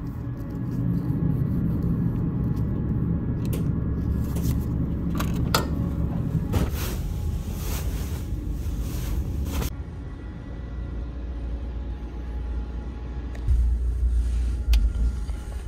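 Steady low rumble of the ferry's engines, heard inside a small sleeping cabin. Rustling handling noise runs through the middle, and there are a couple of low thumps near the end.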